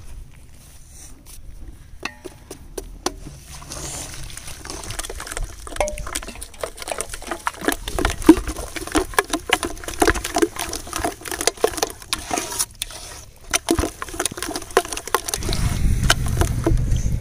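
Batter of gram flour, rice flour and water being mixed by hand in a vessel: a fast, irregular run of short wet taps and sloshes, busiest around the middle. A low steady rumble comes in near the end.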